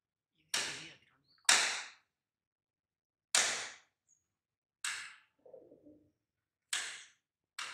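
Feral rock pigeon striking another pigeon with its wing: about six sharp slaps, one to two seconds apart, each trailing off quickly.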